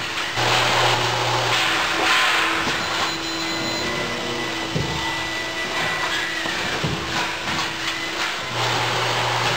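Steady machinery noise of an automated press line worked by industrial robot arms: a continuous noisy din with a constant hum. A low drone switches on briefly at the start and again near the end, with a few light knocks in between.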